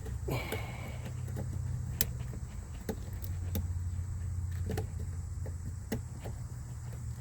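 Scattered light clicks and knocks of plastic trim and a seatbelt sensor connector being handled and pushed into place, with a brief scrape just after the start, over a steady low hum.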